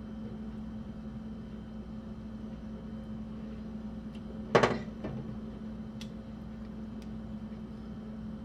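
A metal fork clinks once, sharply, against the cookware a little past halfway as chicken wings are picked from the roasting pan, followed by a couple of faint ticks. A steady low electrical hum runs underneath.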